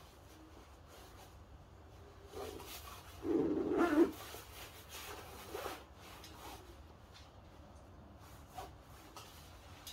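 Puffer jacket's fabric rubbing and rustling as it is handled and worn, with a louder, longer rub about three to four seconds in.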